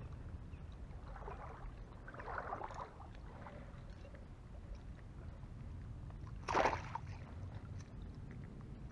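Shallow water sloshing and splashing around a person wading at the bank. There are a few irregular splashes in the first few seconds and one louder, sharper splash about two-thirds of the way through.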